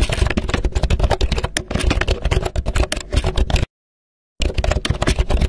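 Rapid computer keyboard typing clicks, used as the sound of text being typed onto the screen, with a short break of silence about two-thirds of the way in.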